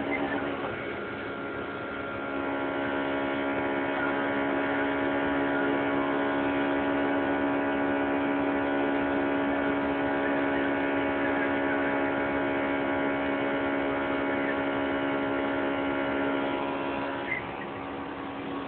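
Honda Integra's naturally aspirated four-cylinder engine held at very high revs against the rev limiter, a steady high-pitched drone heard from inside the cabin. It eases off near the end.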